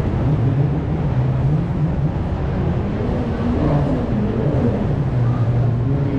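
A steady low rumble with indistinct voices murmuring through it.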